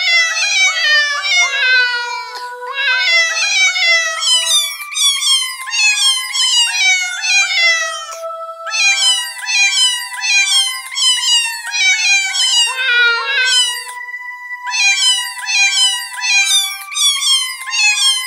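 Credits music made of quick, short falling meow notes in an even rhythm, about four or five a second, over held steady tones, pausing briefly a few times.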